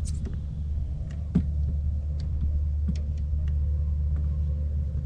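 A steady low rumble of wind buffeting the camera microphone, with a few light clicks and taps scattered through it.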